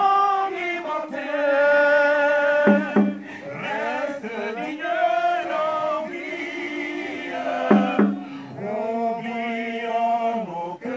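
A man singing a song through a hand-held microphone in long held notes, with a crowd singing along.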